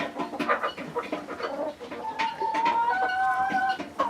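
A hen sitting on her eggs clucks and then gives long, drawn-out protesting calls from about two seconds in as a hand reaches under her for the eggs, over scratchy rustling in the nest.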